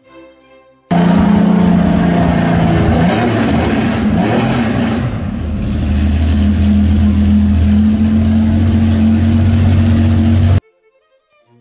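Porsche 3.2-litre air-cooled flat-six race engine with twin triple-barrel carburetors, running on an engine test stand. Its note dips about halfway through, then steadies again. It starts abruptly about a second in and cuts off near the end.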